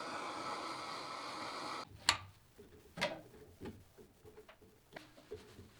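A steady hiss that cuts off suddenly about two seconds in, then light metallic clicks and taps, roughly one or two a second, from a wrench working the square-head screws of a VW Beetle's transmission shift coupler loose.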